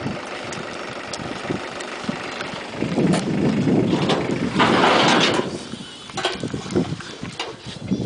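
Car engine running as a small station wagon drives slowly over wooden plank ramps. It grows louder for a couple of seconds in the middle, with a few sharp knocks near the end.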